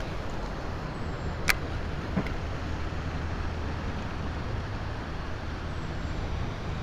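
Steady low rumble of distant road traffic, with a sharp click about a second and a half in and a fainter click shortly after.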